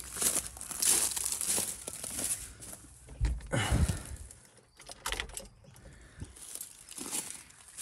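Footsteps crunching through dry gum leaves and bark litter, then a couple of low thumps and rustles about three seconds in as someone climbs into the cab of an old ute.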